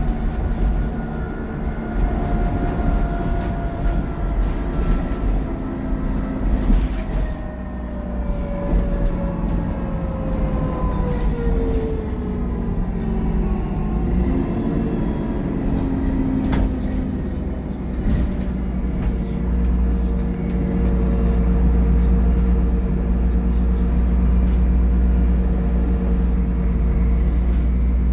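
Dennis Trident double-decker bus running, with a whine that falls steadily in pitch through the middle, a sharp click about 16 seconds in, then a steadier, louder low rumble with an even hum near the end.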